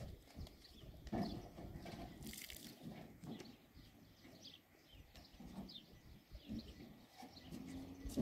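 Faint outdoor ambience with scattered small bird chirps and a few soft knocks.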